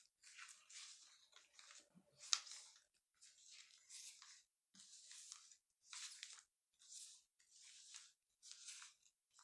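Faint swishes of tarot cards being slid and mixed face-down across a cloth-covered table, roughly one sweep a second. A sharper card snap comes about two seconds in.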